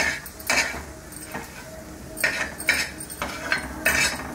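Metal spatula scraping egg bhurji across a flat griddle (tawa) and onto a steel plate, in a series of short scrapes, some in quick pairs.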